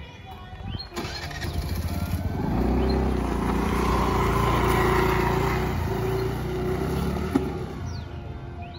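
A TVS motor scooter's small engine comes to life about two seconds in and runs steadily as the scooter pulls away with two riders. It is loudest a couple of seconds later, then fades as the scooter rides off into the distance.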